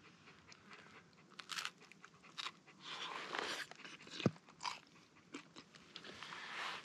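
Crunchy bites and chewing of a crisp pan-baked pizza crust, in irregular short crunches.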